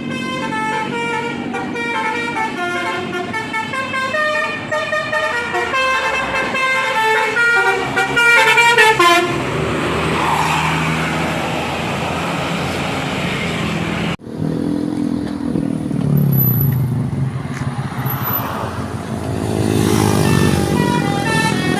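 A bus's basuri musical horn playing a tune of quick stepped notes for the first several seconds, followed by bus engine and traffic noise. After an abrupt cut about two-thirds of the way through, engine rumble continues and the horn tune starts again near the end.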